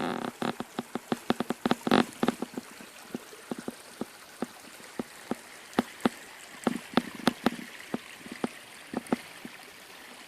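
Irregular drips and plinks of water, a few a second, over the faint steady trickle of a small forest creek.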